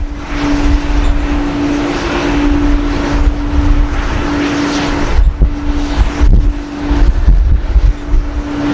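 Strong gusty wind buffeting the microphone with a heavy, uneven rumble, over a steady droning hum and a hiss that rises and falls.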